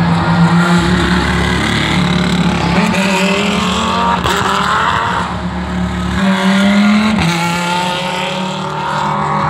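GT race car engines running on the circuit. One rises in pitch as it accelerates about four seconds in, and another revs up and drops back sharply about seven seconds in, as with a gear change.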